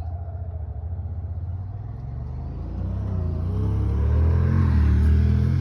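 Motor vehicle engine running with a low rumble, then speeding up, its pitch and loudness rising over the last few seconds.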